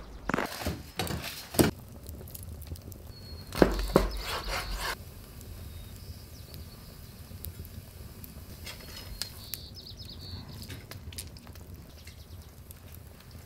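Footsteps and handling knocks for the first few seconds, ending abruptly. Then quieter light taps and scraping as a small knife and fingers trim raw chicken wings on a wooden cutting board.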